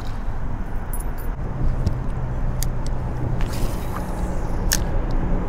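Steady low rushing noise, heaviest in the bass, with a few faint short clicks in the middle.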